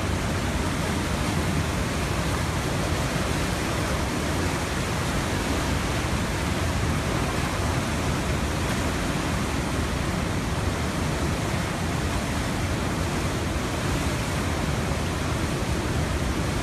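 The Tanaro river in flood, bursting its banks and rushing through the streets: a steady, unbroken rush of fast-moving floodwater.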